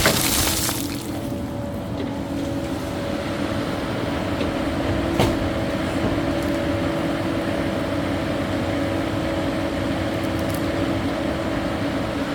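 Caterpillar 308E2 mini excavator's diesel engine running steadily under load, a constant hum. A brief rush of noise comes right at the start, and a single sharp knock about five seconds in.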